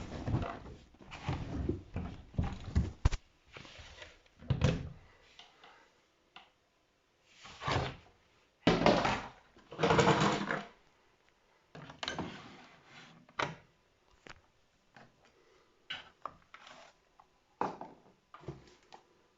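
Irregular clunks, knocks and rustling as a Zanussi Jetsystem Turbodry ZWD 1000 washer-dryer is handled by hand. Several longer scraping or rushing noises come around the middle.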